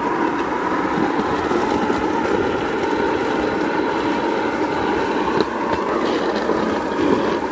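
Steady running noise of a vehicle moving along a railway track, a continuous rumble with no breaks.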